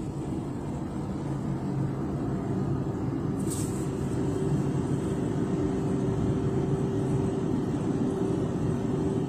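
Gantry car-wash drying blowers running: a loud, steady fan drone with a low hum that builds over the first couple of seconds, heard from inside the car. A brief high hiss cuts in about three and a half seconds in.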